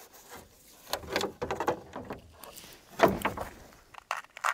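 Irregular scraping and knocking as a fibreglass front spoiler is worked into place against a car's front bumper. The loudest knock comes about three seconds in, with a few sharp clicks near the end.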